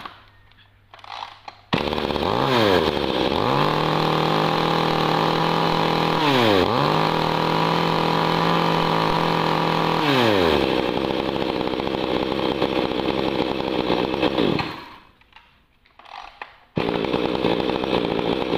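A Maruyama 31 cc two-stroke top-handle chainsaw starts and is held at high revs, with a brief dip in engine speed midway. It drops back to idle and shuts off. About two seconds later it starts again and runs.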